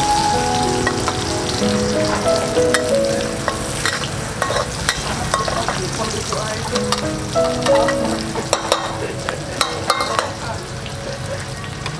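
Food frying and sizzling in a pan while being stirred, with frequent sharp clicks and scrapes of the utensil against the pan. A background music melody plays over it.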